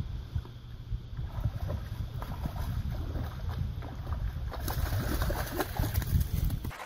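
Wind rumbling on the microphone, then water splashing from a little after four seconds in as a hooked fish thrashes at the surface beside the float.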